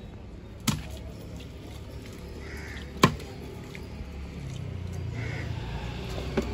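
Heavy cleaver chopping through a large catla fish into a wooden log block: two sharp chops, about a second in and about three seconds in, and a lighter one near the end.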